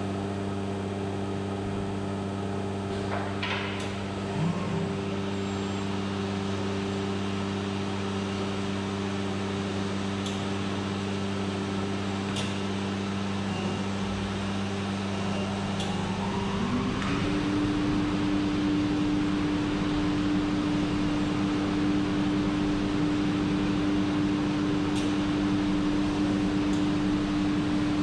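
HOMAG CENTATEQ N-500 CNC machining centre running with a steady hum of several held tones. A little past halfway a rising whine climbs and settles into a new steady higher tone, a little louder, as the router spindle spins up to speed.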